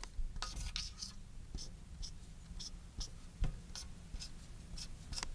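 Faint, scattered light clicks and rustles of small parts being handled, over a low background hum.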